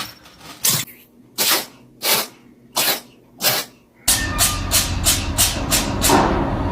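A cat sneezing again and again in a fit: five sharp sneezes a little over half a second apart, then, from a little past halfway, a faster run of sneezes about three a second over a low rumble.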